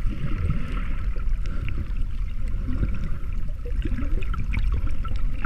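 Muffled water noise heard through a camera held underwater: a steady low rumble with scattered small bubbling pops.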